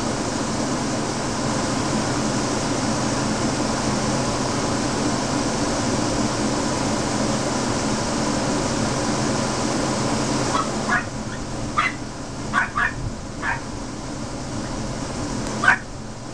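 Steady hiss of heavy rain, which thins abruptly a little over ten seconds in. After that, a dog gives about seven short, high yips over the last few seconds.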